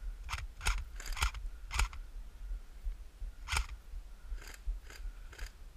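Airsoft fire in woodland: about ten sharp, single cracks and clicks at irregular intervals, over a low rumble.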